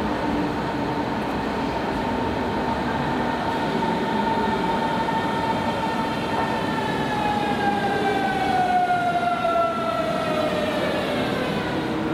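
Berlin S-Bahn class 481 electric train braking into the station with its traction motors whining. The whine holds a steady pitch for about six seconds, then falls smoothly as the train slows to a stop, over the rumble of its wheels on the rails.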